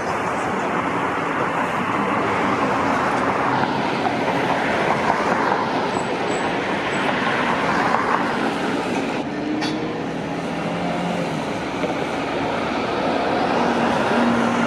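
Steady road-traffic noise with a vehicle running nearby.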